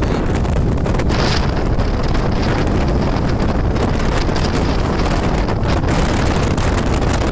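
Loud, steady wind buffeting the microphone of a moving vehicle, covering the road and engine noise; a short hiss comes just over a second in.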